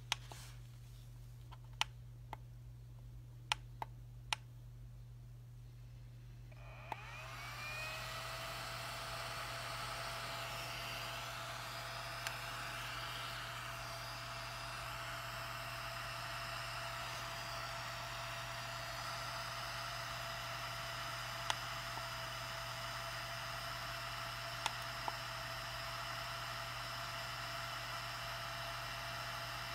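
Deess IPL hair removal handset: a few sharp clicks, then about a quarter of the way in its cooling fan spins up, rising in pitch, and settles into a steady whir. A few more single clicks sound over the whir.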